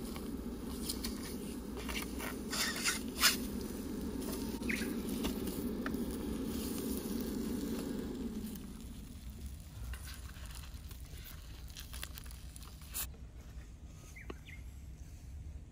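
Eggs frying on a hot plate with a steady sizzle, while wooden chopsticks scrape and tap the pan a few times in the first seconds. The sizzle fades out about halfway through, leaving only faint scattered clicks.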